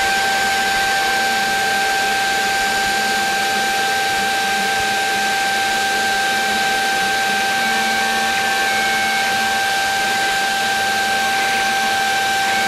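Rostock Max delta 3D printer running a print: a steady hiss with a constant high whine, and short tones that come and go as the print head moves.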